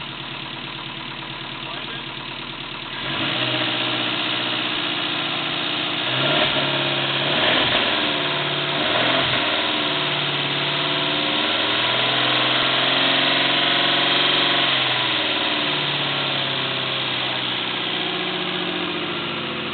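1992 Subaru EJ22 2.2-litre fuel-injected flat-four running on an engine stand. It runs quieter at first, gets louder about three seconds in, revs up and down for a few seconds, then holds a steady, higher speed.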